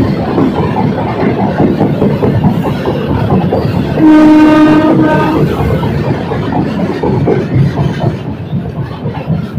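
Express train with LHB coaches running at speed: steady rumble and clatter of the wheels on the rails. About four seconds in, the locomotive's horn sounds one steady blast of a little over a second, the loudest sound here.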